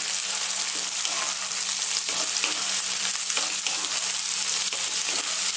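Tofu cubes, sliced red onion, garlic and ginger sizzling in oil in a hot nonstick wok, with a steady hiss, while a wooden spatula stirs them and scrapes lightly against the pan now and then.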